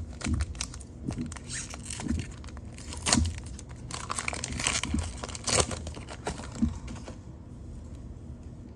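Foil trading-card pack wrapper being crinkled and torn open by hand, a run of sharp crackles that stops about seven seconds in.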